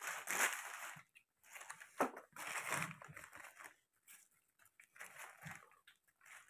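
Paper and foil takeaway wrapping crinkling and rustling as a hand opens it and pulls out a puri. The rustling comes in bursts through the first three seconds, then only faint rustles.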